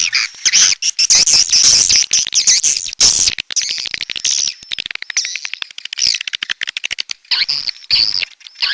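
Swiftlet call recording: dense, loud twittering and chirping of many swiftlets, with a rapid run of clicks about three to five seconds in. It is a lure call of the kind played to draw swiftlets into nesting houses.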